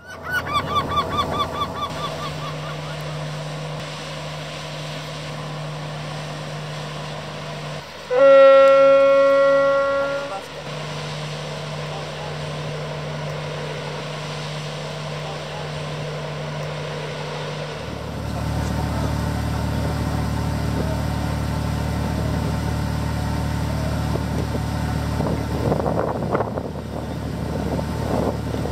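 A ship's horn gives one long blast of about two seconds, the loudest thing here, over the steady low drone of a boat engine. The drone deepens and grows louder about eighteen seconds in. A quick run of bird calls sounds at the very start.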